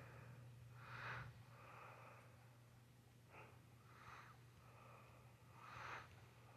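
Near silence: a faint steady hum with a few soft, breathy puffs of noise, about a second in, around four seconds and near six seconds.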